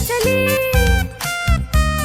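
Instrumental children's-rhyme backing music: a bouncy melody over a regular bass beat, with no singing.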